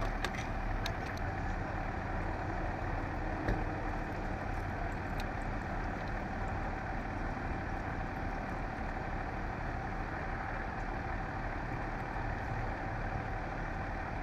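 Vehicle engine idling steadily: a constant low rumble with a faint steady whine over it. A few light clicks come near the start, and a small knock about three and a half seconds in.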